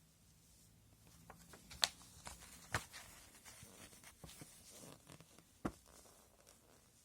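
Hands handling the packaging of a model-kit upgrade set: quiet rustling and scraping with three sharp clicks, the loudest about two seconds in, then near three seconds and near six seconds.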